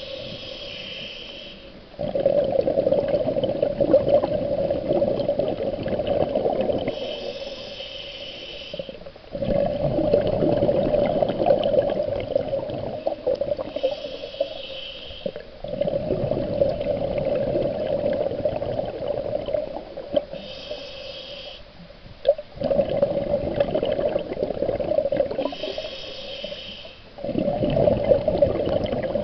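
Scuba regulator breathing heard underwater: a short hiss of inhalation, then a longer bubbling exhale, repeated about every six seconds, five breaths in all.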